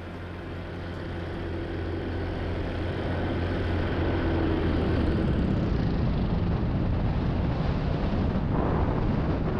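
Paramotor in flight: wind rushing over the microphone together with the engine's drone, growing louder over the first five seconds and then holding steady.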